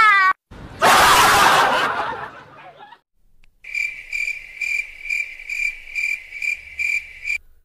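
A loud rushing noise swells and fades over the first two seconds. After a short gap comes a cricket-chirping sound effect: a steady train of high chirps, about two a second, which stops just before the end.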